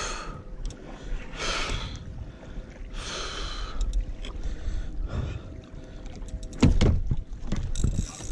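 Water slapping against a Hobie fishing kayak's hull during a long tarpon fight, with three short rushing hisses in the first four seconds. A few hard knocks on the hull follow near the end, the loudest about seven seconds in.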